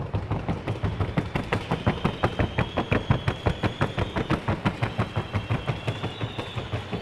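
A Colombian trocha mare's hoofbeats knocking on a wooden sounding board in a fast, even rhythm of about seven beats a second, louder through the middle and fading near the end as she passes.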